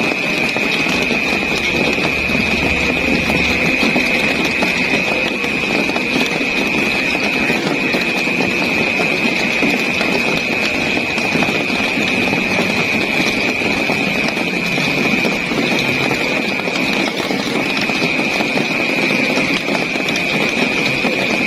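Steady rain falling, an even hiss of patter, with a constant high-pitched tone above it.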